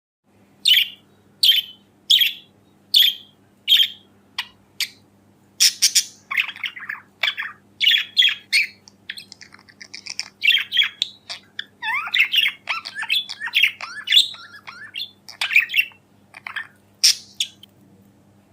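Budgerigars calling: a run of five sharp chirps about one every three-quarters of a second, then quicker, more varied chattering and warbling chirps. A faint steady low hum lies underneath.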